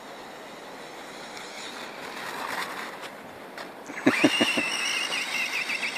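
RC monster truck with a brushless electric motor, running in snow: a faint steady hiss at first, then about four seconds in a loud, high whine from the motor and drivetrain that wavers in pitch with the throttle, with a few low thumps as it starts.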